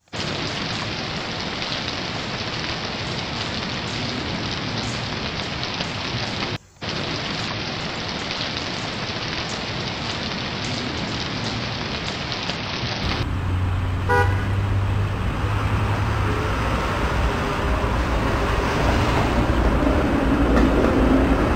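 A steady even hiss for about thirteen seconds, then road traffic: a low engine hum, a short car-horn toot about fourteen seconds in, and a held tone building near the end.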